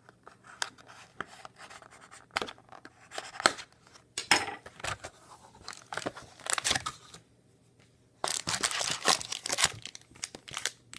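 A sealed hockey card box being torn open and its card packs lifted out: tearing of wrap and cardboard with scattered clicks and rustles, then a denser stretch of crinkling about eight seconds in.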